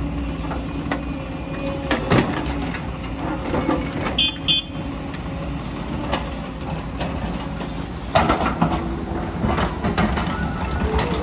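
JCB tracked excavator's diesel engine running steadily while the bucket tips stones into a tractor trolley, with a clatter about two seconds in. From about eight seconds on the bucket digs into a rocky bank, with a run of scraping and knocking rocks.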